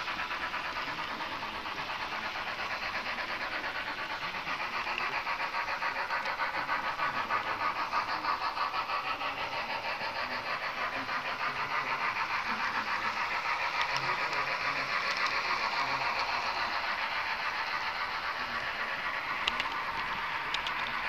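HO-scale model train running on the track: a steady mechanical whir and rattle of a small motor and wheels on rail, swelling slightly in level. A couple of sharp clicks near the end.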